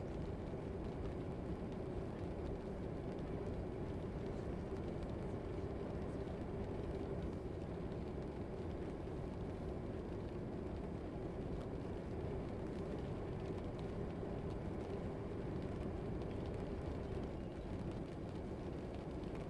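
Steady, low background rumble of an ambience track, unchanging and with no distinct events.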